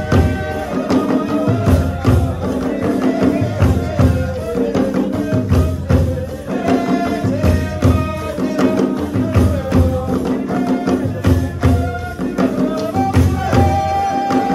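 Rwandan traditional dance music: drums beating a steady rhythm under a sung melody.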